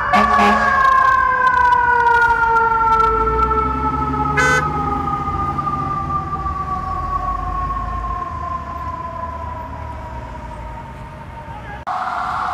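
Fire engine's mechanical siren wound up to a high wail, then slowly winding down in pitch over about ten seconds, with a short horn blast about four seconds in and a low engine rumble underneath. Near the end a different siren cuts in at a steady pitch.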